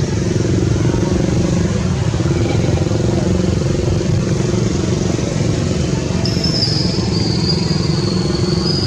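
A motor engine runs steadily, a continuous low drone. A thin, high-pitched squeal wavers over it for the last few seconds.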